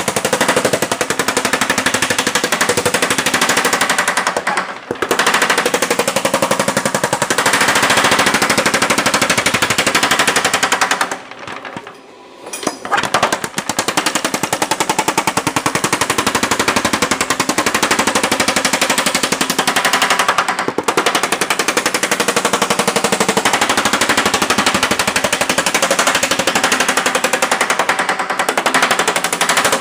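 Yoder power hammer pounding a sheet-metal panel in a fast, steady rattle of die strokes while shrinking it. It stops briefly about five seconds in and again for about a second and a half near the middle.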